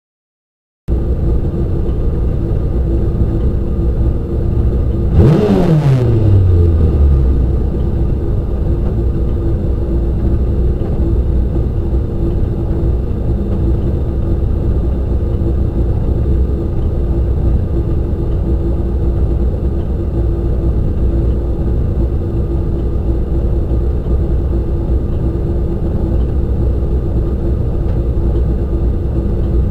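Race car engine idling, heard from inside the cockpit, with one sharp throttle blip about five seconds in that revs up and falls back over a couple of seconds.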